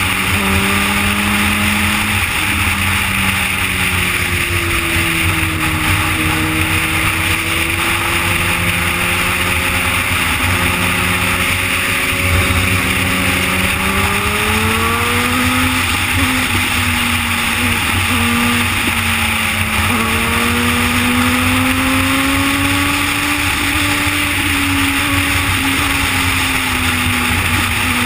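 2011 Suzuki GSX-R's inline-four engine running at highway cruise, heard from the rider's seat. Its pitch drifts with the throttle, climbing about halfway through and rising again a few seconds later.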